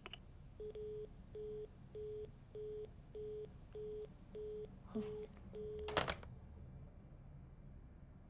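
Telephone line tone beeping through a desk phone handset at about two beeps a second, the sign that the caller has hung up. About six seconds in, the handset is put down on its cradle with a sharp clack.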